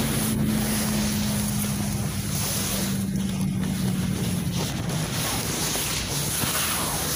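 Cabin noise inside a moving GAZelle Next minibus: steady engine and road rumble, with an engine hum that sinks a little in pitch and fades about four and a half seconds in. Scuffs from the phone rubbing against passengers' coats.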